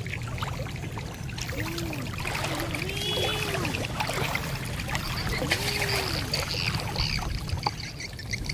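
Water splashing and trickling as a wooden pole pushes a small boat through the water. A chorus of pulsing high calls runs behind it, and three low rising-and-falling calls come about two, three and six seconds in.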